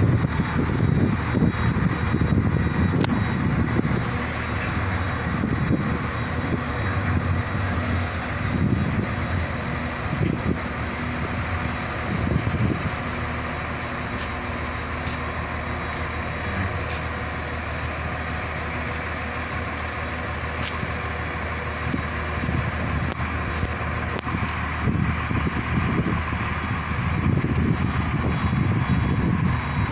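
Bus engine running steadily as the bus reverses slowly, with wind buffeting the microphone at the start and again near the end.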